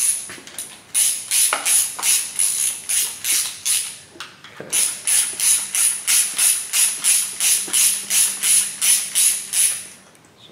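Socket ratchet clicking steadily, about four clicks a second, as the camshaft bolt is run in to pull the cam forward into its timing sprocket. There is a short pause about four seconds in before the clicking resumes.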